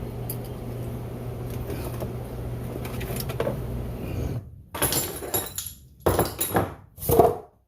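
A steady low hum runs for about four seconds and then cuts off. It is followed by three short bursts of metal clanking and scraping as the old pool pump motor is worked free of the pump housing.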